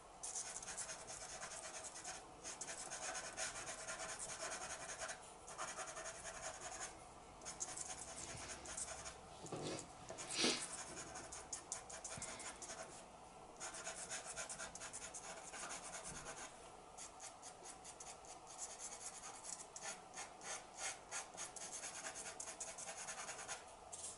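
Charcoal pencil scratching on paper in short strokes as fur hairs are drawn, with a quicker run of short flicking strokes in the last several seconds. One brief louder noise about ten seconds in.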